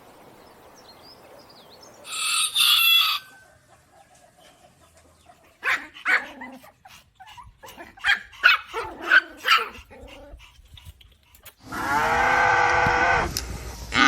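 A series of animal calls: a brief high call about two seconds in, a run of short calls in the middle, then a rooster crowing for about two seconds near the end.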